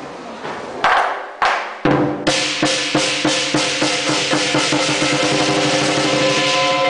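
Lion dance percussion on the lion drum and cymbals: a few separate hard strikes about a second in, then from about two seconds in a fast, continuous drum roll with cymbals ringing over it.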